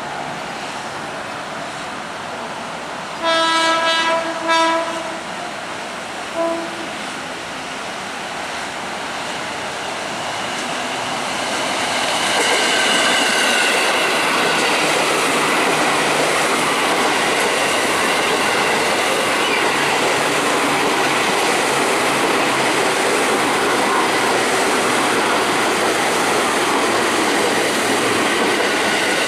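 KRL commuter electric train sounding its horn on the approach: three blasts, the first the longest and the last a short toot. The train then runs past close by, its wheels on the rails rising to a loud, steady rumble from about ten seconds in, with some wheel squeal.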